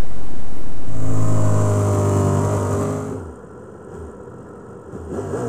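Racing superbike engine heard from the onboard camera. It is loud at speed at first, then runs steadily at lower revs, drops to a quieter low-speed running about three seconds in, and gets short throttle blips near the end.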